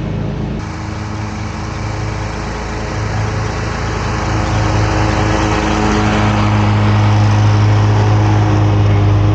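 Commercial Wright stand-on mower running steadily under load, its engine hum getting louder about halfway through.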